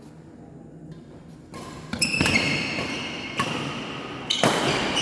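Badminton play in a large hall: a few sharp racket-on-shuttlecock hits, the first about two seconds in and then roughly a second apart, mixed with high squeaks from shoes on the court floor.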